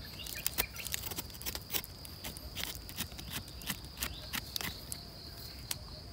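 Irregular crackles and rustles of forest-floor debris being disturbed while mushrooms are picked, about three a second and thinning out near the end, over a steady high-pitched insect drone.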